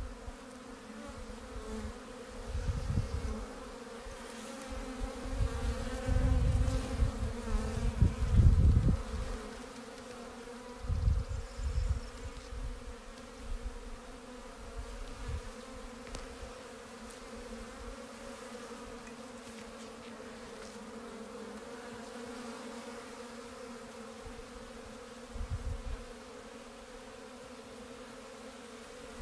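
Honeybees buzzing in a steady low hum around open hives with newly hived swarms. Several louder bursts of low rumble break in, a few seconds in and again near the end.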